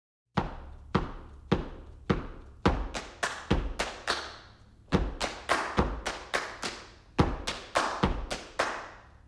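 Opening of a song: a steady run of sharp percussive hits, about two to three a second, each ringing briefly, over a low sustained bass note.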